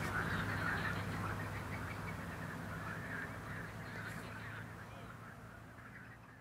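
A dense chorus of animal calls from the lake, many overlapping croaks and honks, over a steady low hum. It fades out gradually toward the end.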